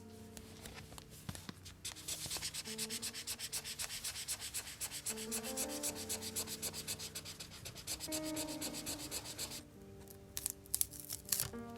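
Rapid, rhythmic back-and-forth rubbing on paper, like sanding or scrubbing a paper surface, lasting about eight seconds. Soft piano music plays underneath, and a few sharp clicks come near the end.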